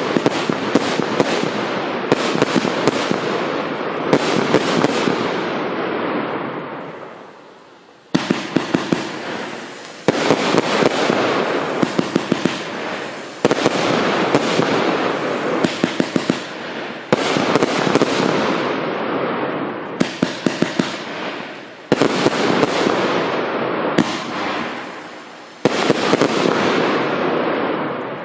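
St8ment 'Hermanos' consumer fireworks cake firing shot after shot: sharp reports and bursts over dense crackling. It drops away twice in short lulls and dies out at the end as the cake finishes.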